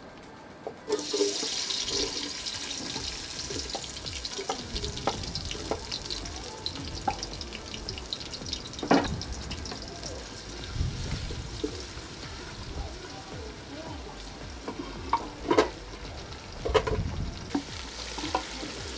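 Chopped onion and garlic hitting hot palm oil and sizzling, starting suddenly about a second in. The pieces are stirred with a wooden spatula, which knocks against the aluminium pot a few times.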